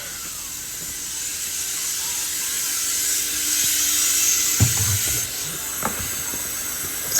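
Kitchen tap running into the sink, a steady hiss that grows louder toward the middle, with a couple of dishes knocking about halfway through.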